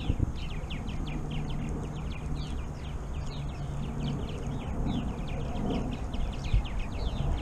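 A dense chorus of small animals chirping: many short, high, downward-sliding chirps, several a second and overlapping, over a low steady hum.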